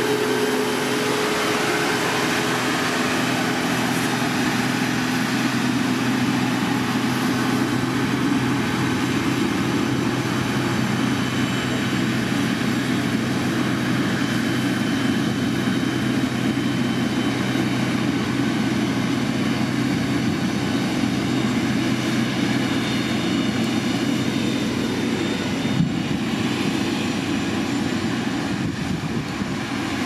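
Heavy diesel engine of road-construction machinery running steadily at working revs, a continuous low drone over the whole stretch.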